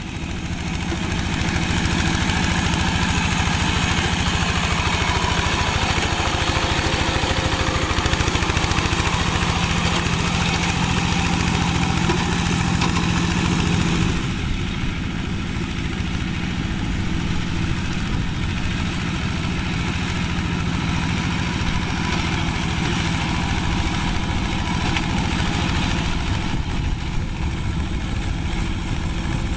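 Single-cylinder diesel engine of a two-wheel hand tractor running steadily while it pulls a plough. The sound fades in at the start and becomes somewhat quieter about halfway through.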